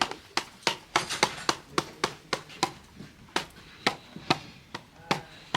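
A run of sharp, irregular taps or knocks on a hard surface, about three or four a second.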